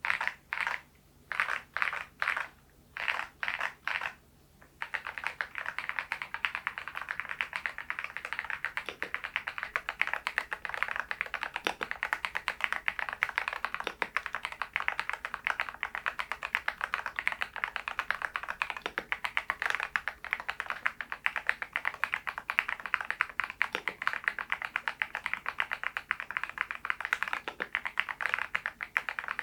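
RK R99 mechanical keyboard with its stock cream switches being typed on: a handful of separate slow keystrokes, then steady fast typing from about five seconds in.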